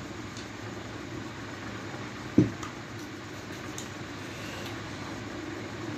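Steady background hum with one dull thump about two and a half seconds in: a drinking glass set down on the cloth-covered table.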